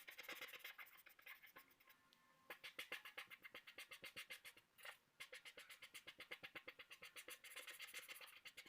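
Pencil scratching on paper in quick back-and-forth shading strokes, about ten a second, in three runs with short pauses about two and five seconds in.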